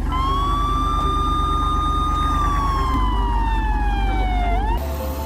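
Police car siren sound effect: one long wail that holds its pitch, then slowly falls and cuts off near the end, over a steady low engine rumble.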